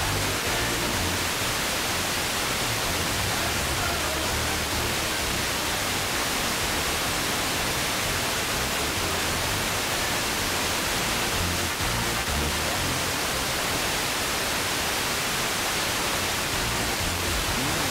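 Steady FM static hiss from a weak, long-distance sporadic-E signal on 92.2 MHz, with the station's music faint underneath the noise.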